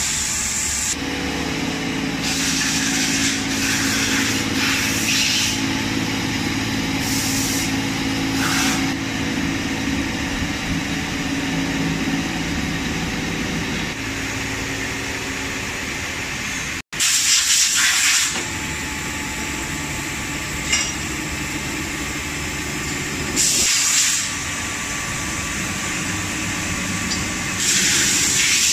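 Machine-shop noise from a floor of running CNC lathes: a steady hum with several held tones. Bursts of hissing, about a second each, come back several times.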